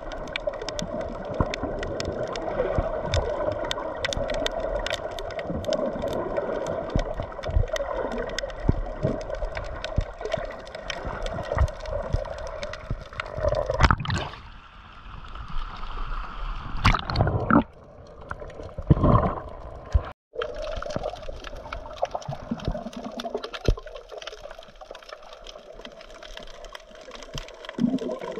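Water gurgling and sloshing around an action camera at or under the surface, with a dense crackle of fine clicks over a steady low hum. A few louder thumps come past the middle, and the sound cuts out for an instant about twenty seconds in.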